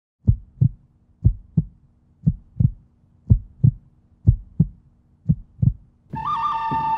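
Heartbeat sound effect: six pairs of deep thumps (lub-dub), about one pair a second. About six seconds in, sustained music tones take over.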